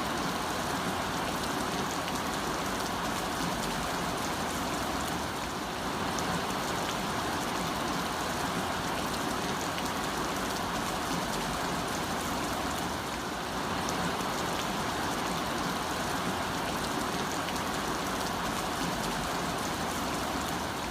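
Heavy rain falling steadily on a road: a dense, even hiss with scattered sharper drops.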